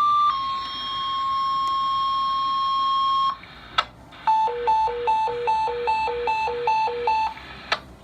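Fire-department dispatch alert tones over a radio channel. A two-tone page (a short higher tone, then a lower one held about three seconds) is followed, after a click, by a hi-lo warble alternating between two pitches about three times a second, ending with a click. The tones alert the fire companies to a call just before the dispatcher reads it out.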